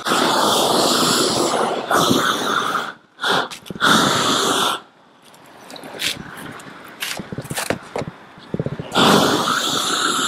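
Propane roofing torch burning as it heats a modified bitumen cap sheet. The flame drops about three seconds in, flares briefly near four seconds, stays low for several seconds with a few knocks, then burns full again near nine seconds.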